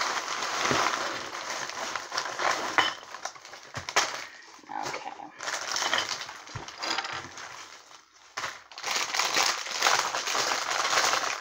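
A shipping envelope and clear plastic bags of Lego pieces being handled and opened: crinkling and rustling plastic, with short pauses.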